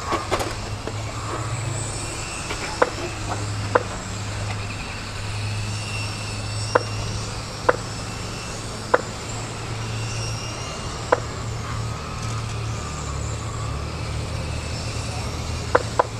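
Electric 1/10-scale Mini RC touring cars racing, their motors making a faint wavering whine over a steady low hum. About eight short, sharp beeps come at irregular intervals.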